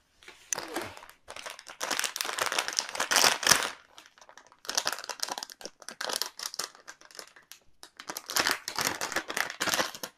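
Plastic packaging crinkling as it is handled and pulled open, in four long spells of crackling with short pauses between them.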